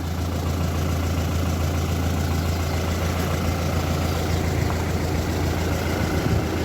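A vehicle engine running steadily, a constant low hum with no revving.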